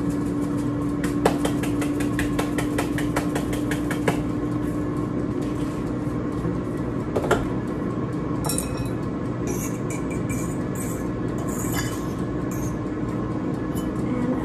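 Air fryer running steadily with a fan whir and a steady hum while it preheats. About a second in, a spice container is shaken over a bowl in a quick run of rattling ticks lasting a few seconds, with softer shakes later on.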